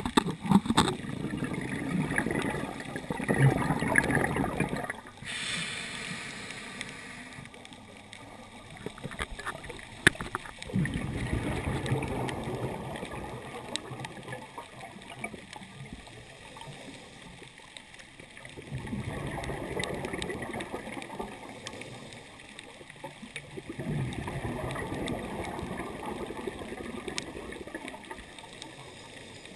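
Scuba diver breathing through a regulator, heard underwater: exhaled bubbles gurgling in four bursts of a few seconds each, with a brief hiss about five seconds in.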